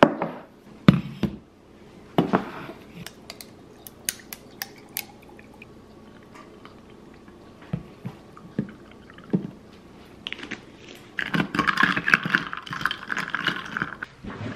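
Kitchenware clinking and knocking in short separate strikes, then about three seconds of liquid pouring near the end.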